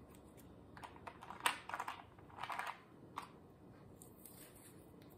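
Small plastic clicks and rattles in a few short bursts, the loudest about one and a half seconds in and a longer rattle around two and a half seconds. The sound comes from diamond painting drills and their small plastic storage containers being handled while kitting up.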